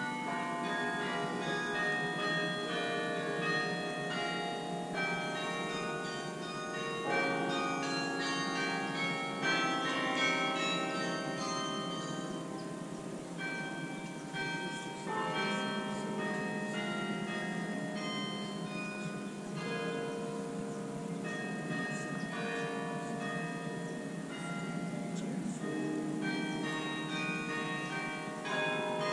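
The Bok Tower carillon playing a tune: bronze bells of many pitches struck one after another, each note ringing on and overlapping the next into chords.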